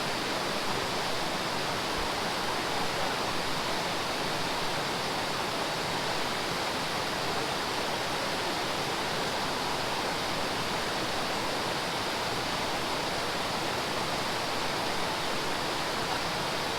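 Steady rushing of a nearby stream, an even wash of flowing water with no breaks.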